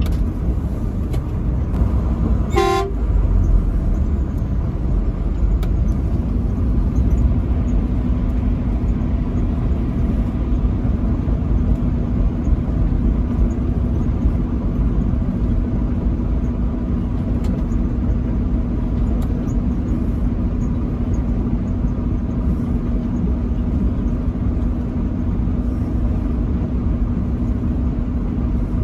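Truck horn sounds one short blast about two and a half seconds in, over the steady low rumble of the truck's engine and road noise while driving. A steady low hum joins the rumble about six seconds in.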